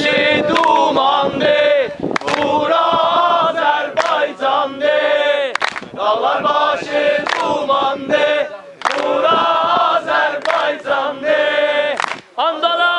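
A large group of men and women singing a song together, with handclaps.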